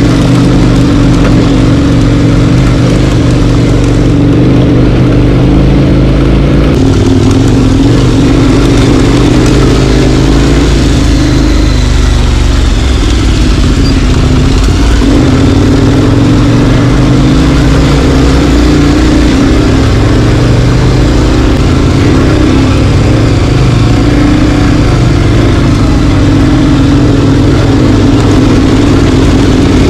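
Four-wheel-drive vehicle's engine running steadily while driving, its note shifting slightly up and down partway through.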